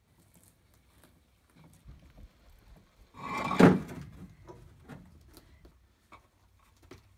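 Pavers being lifted out of a rusty steel wheelbarrow and set down on the ground. A loud scrape and clunk of paver against metal comes about three and a half seconds in, followed by lighter knocks.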